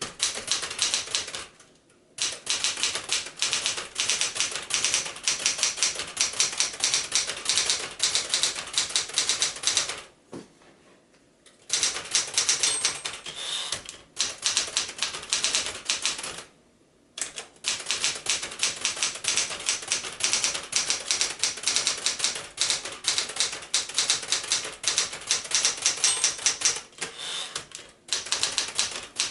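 1973 Smith-Corona Galaxie Twelve manual typewriter being typed on: rapid runs of sharp keystroke clacks, broken by a few brief pauses.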